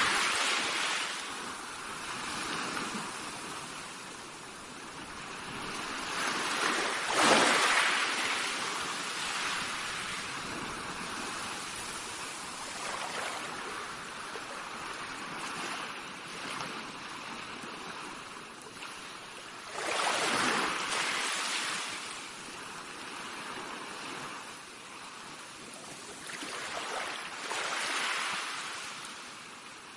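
Small waves from a calm sea washing onto the shore, with a steady hiss of water and a louder wash swelling in four times, about seven seconds in, around twenty seconds and near the end, before fading.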